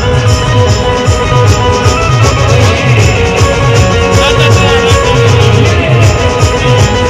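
Loud band music with a steady, fast drum beat under a melody line.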